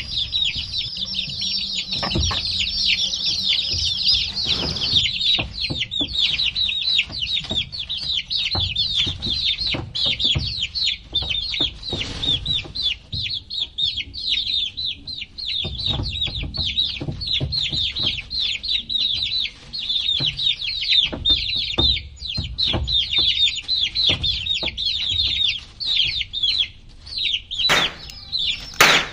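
A brood of baby chicks peeping nonstop, many short, high, falling cheeps overlapping one another, with an occasional knock or bump among them.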